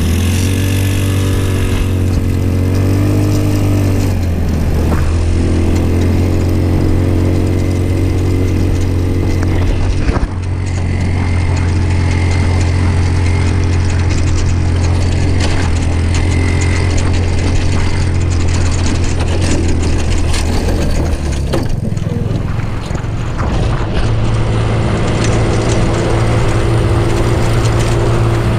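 Off-road go-kart engine running under throttle, heard from the driver's seat as the kart drives over rough dirt. Its pitch rises and falls in the first few seconds, then holds steady, dips about three quarters of the way through and settles a little higher at the end. There is a sharp knock about ten seconds in.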